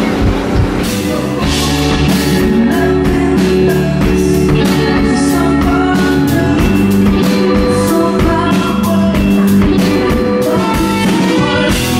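Live rock band playing: drum kit beating a steady rhythm under electric guitar and bass.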